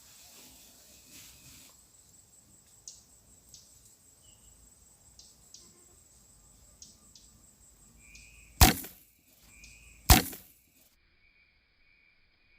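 Two loud, sharp cracks about a second and a half apart, over faint scattered ticks and hiss.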